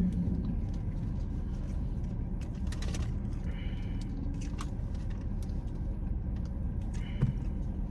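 Steady low rumble inside a car's cabin, with a few faint clicks and two brief soft rustles over it.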